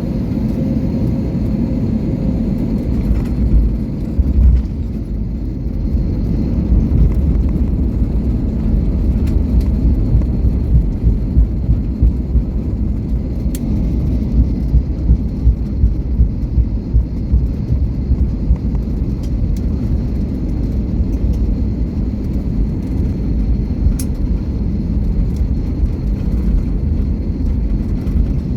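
Airliner cabin noise on the ground after landing: a steady low rumble of engines and wheels, with a run of uneven bumps in the middle.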